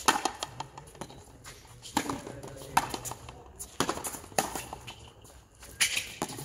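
Frontenis rally: the hard ball cracking off the players' rackets and the front wall, about six sharp echoing strikes spaced roughly a second apart.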